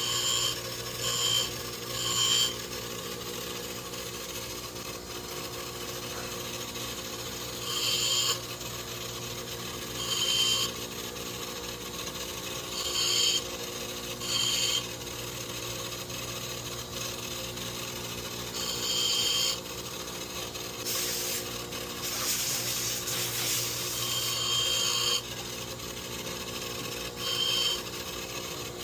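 A power grinding tool runs steadily while the steel hammer of a 1911 pistol is pressed against it in about a dozen short bursts of grinding, roughing out a rounded, bobbed hammer spur.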